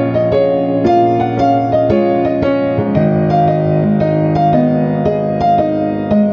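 Background music: a gentle piano melody over sustained low notes, steady in pace.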